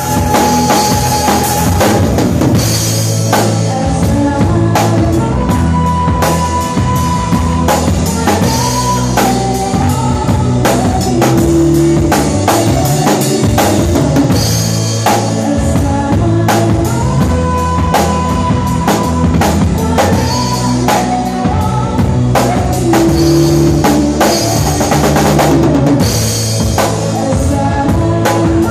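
Loud music with a drum-kit beat and a bass line. Its phrases repeat about every twelve seconds.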